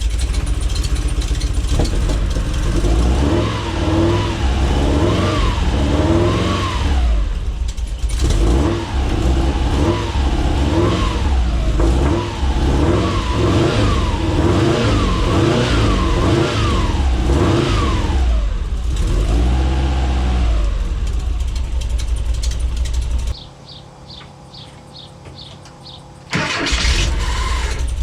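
Subaru boxer engine in a VW T3 Kombi running and being revved again and again, its pitch climbing and falling every second or two, then settling to a steady run. It is running off a jerry can on injectors that have just been given power after a wiring fault was fixed. Near the end the engine sound drops away sharply for about three seconds, then comes back.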